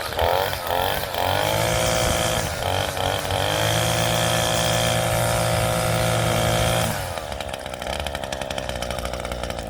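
Echo SRM-230 string trimmer's small two-stroke engine running on a newly fitted carburetor: it revs up, holds at high throttle, then drops back to a lower, rattly idle about seven seconds in.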